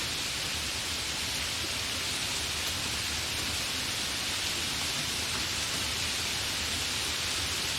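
Light rain falling in a steady hiss, with a few faint drop ticks.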